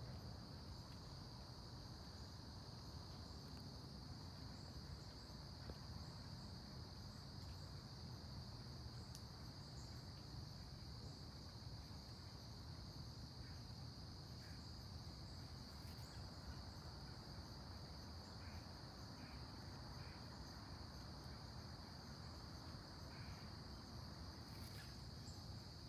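Faint outdoor insect chorus of crickets: a steady, unbroken high-pitched trill over a low background rumble.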